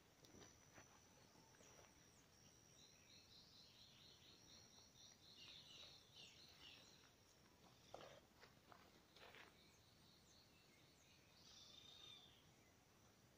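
Faint dawn birdsong: a bird sings rapid runs of repeated chirps over a steady, high-pitched insect drone. Two short rustles come about two-thirds of the way through.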